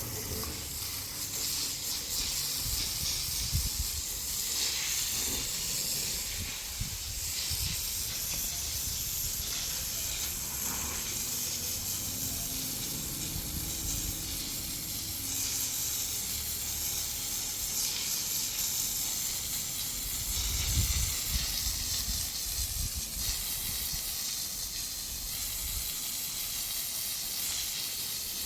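A steady high hiss with irregular low rumbles underneath, stronger for a while about two-thirds of the way through.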